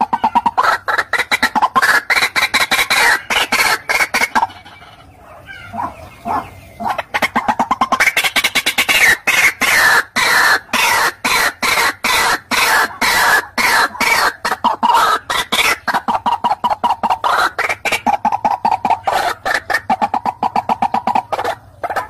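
White-breasted waterhen (ruak-ruak) calling: a long run of loud, short notes repeated rapidly, several a second, broken by a quieter stretch of a few softer notes about four to seven seconds in.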